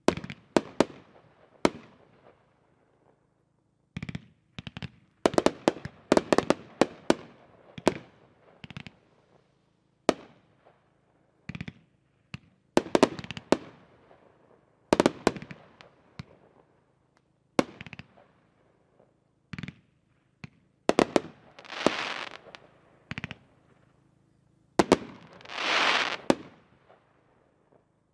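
Two consumer firework cakes, Angel and Pyromaniac's Brain, firing together: irregular volleys of sharp shot bangs and breaks, with two longer hissing rushes near the end.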